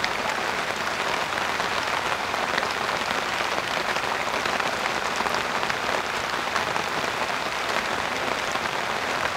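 Heavy rain falling steadily: an even hiss of many fine drops that holds at one level throughout.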